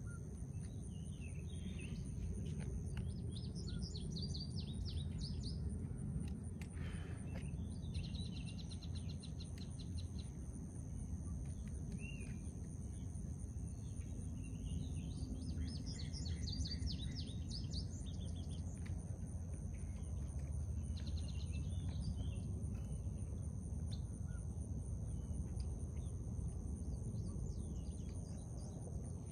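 Songbirds singing in several short bouts of chirps and trills. Under them runs a steady high insect drone and a steady low rumble.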